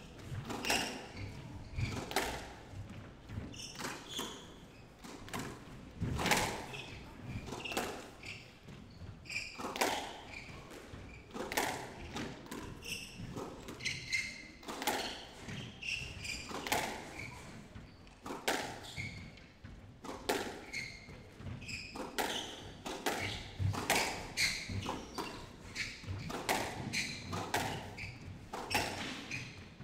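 Squash rally: the ball struck by racquets and smacking off the court walls in a quick, irregular run of sharp hits, roughly one every half second to a second, with the players' footsteps on the wooden court floor.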